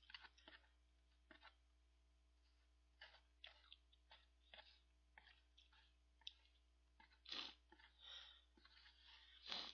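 Faint eating sounds: a metal fork clicking and scraping as it stirs noodles in a cup ramen bowl, with chewing. Three longer, louder noisy sounds come in the last few seconds.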